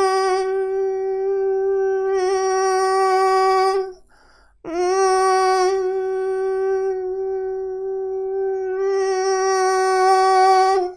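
A man's voice sustaining a bright, buzzing 'mosquito' tone on one steady pitch: a vocal exercise meant to add chest voice into the head voice. Two long held notes, with a short breath about four seconds in.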